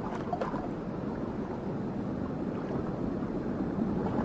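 Steady low wash of sea water, like surf on a beach.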